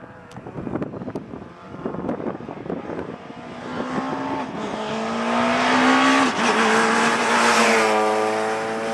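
Rally car approaching at speed and passing close, its engine note growing from faint to loud over the first few seconds. The note dips briefly about six seconds in, then is held high and loud as the car goes by.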